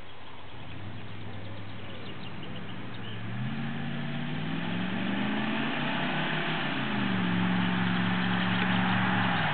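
V8 engine of a Ford F-150 Lightning pickup running. About three seconds in the revs climb smoothly, then ease back and hold steady, while a broad rushing noise grows louder.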